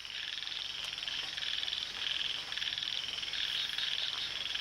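A chorus of frogs calling: a dense, continuous run of rapid, high-pitched pulsed calls that swells and eases.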